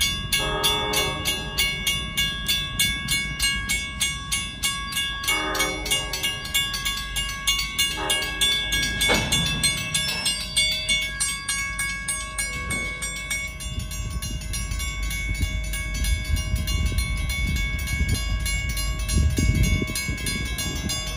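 Railroad grade-crossing bells ringing steadily, about two to three strokes a second, while a diesel locomotive horn sounds three short blasts in the first eight seconds. A freight train's low rumble grows louder toward the end.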